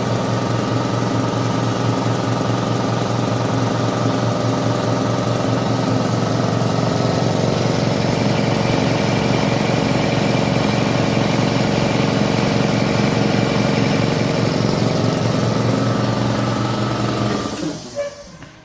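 Air compressor motor and pump running steadily, working again after repair. It shuts off near the end with a short hiss of air.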